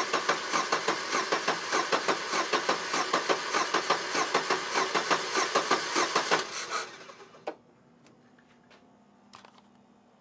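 Electric sparks on a spark board snapping and crackling in a fast, uneven stream, then stopping about seven seconds in; a few faint clicks follow.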